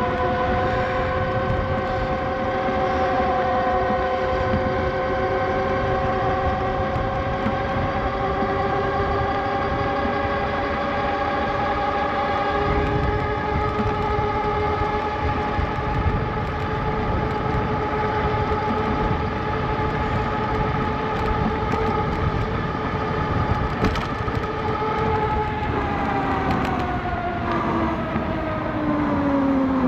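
Fucare Gemini X e-bike's hub motor whining under power during a ride, its pitch climbing slowly as the bike gathers speed, then dropping near the end as it slows, over steady wind and tyre noise.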